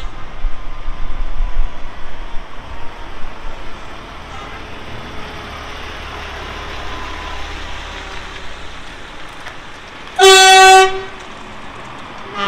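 A lorry rumbles past, loudest in the first couple of seconds and then fading. About ten seconds in comes a single loud lorry horn blast, under a second long, on one steady pitch.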